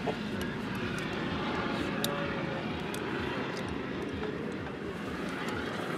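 Steady drone of a light aircraft's engine in the background, with a few short metallic clicks as a glider seat harness is buckled and adjusted.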